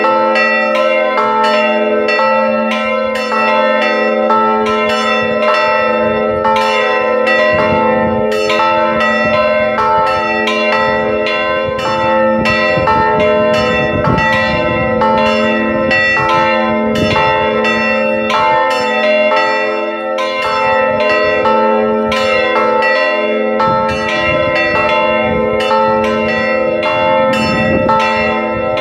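Three swinging church bells in an open-frame belfry ringing together in a full peal (plenum), their strokes falling a few a second in an uneven, overlapping pattern over long ringing tones. This full peal of all the parish bells is the call to Sunday Mass, rung half an hour before it.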